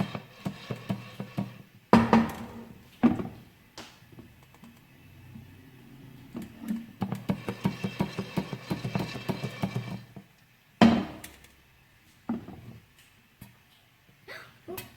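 Popcorn kernels popping in a hot pan: many irregular sharp pops, coming thick in bursts with a few single loud pops between them.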